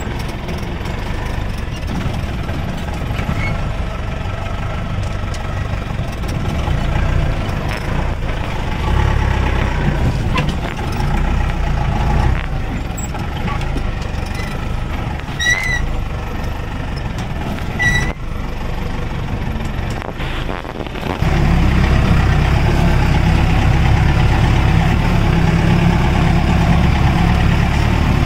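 Off-road vehicle's engine running as it crawls over a rough rocky track, a steady low rumble with a couple of short high squeaks just past the middle. The rumble gets louder and steadier about three-quarters of the way through.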